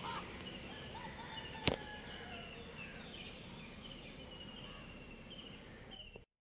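Outdoor garden ambience with small birds chirping over and over in short, falling chirps, and a single sharp click about a second and a half in.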